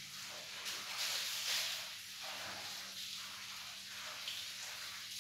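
Water splashing and dripping as wet laundry is wrung and worked by hand over a plastic bucket of water, swelling and fading several times as the cloth is twisted and dunked.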